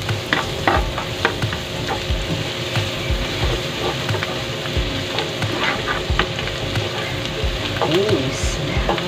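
Minced garlic sizzling in melted butter and oil in a nonstick frying pan, stirred with a spatula that scrapes and taps against the pan at irregular moments over the steady sizzle.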